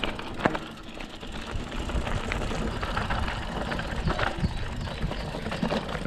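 Mountain bike rattling and clattering as it rolls over a rough dirt trail with roots, giving irregular sharp knocks over a low rumble.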